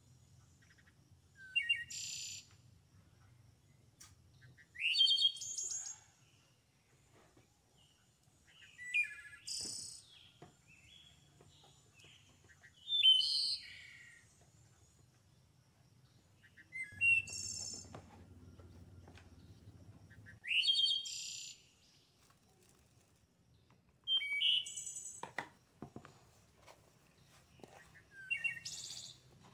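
A songbird singing short phrases about every four seconds, each a quick rising note leading into high chatter, with faint knocks and handling noise beneath.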